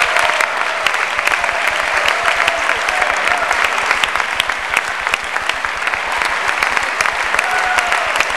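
Basketball crowd in a gymnasium clapping steadily: a dense patter of claps from the stands, with faint voices mixed in.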